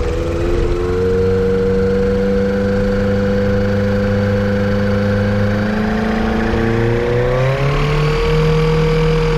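Yamaha Apex four-cylinder four-stroke engine on a Kitfox airplane running steadily, its pitch shifting about six to eight seconds in as the engine speed changes. The engine is being run while the owner chases a misfire he suspects is caused by a vacuum leak.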